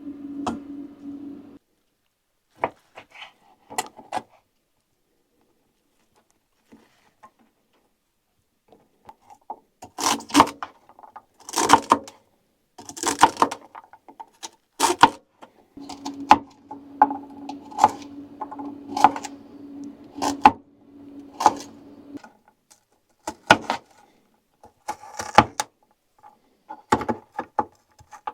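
Cooking gear clinking and knocking in a quick series of sharp metallic clicks and clatters, starting about ten seconds in, with a steady low hum underneath at times.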